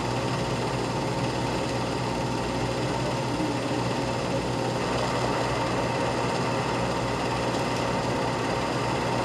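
Steady whirring of an 8 mm film projector running, with a constant hum beneath it.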